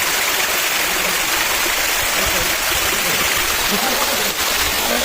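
Rushing water, a loud steady hiss of falling or flowing water from a monsoon waterfall or stream.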